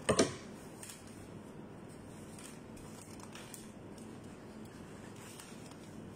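A brief metallic clatter right at the start, a metal utensil set down on a metal serving tray. After it come only faint handling and rustling sounds as sandwiches are wrapped.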